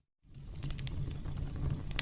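Campfire crackling: a steady low rumble of burning wood with scattered sharp pops and snaps. It begins with a brief dropout to silence that fades back in, as at a splice in a looped recording.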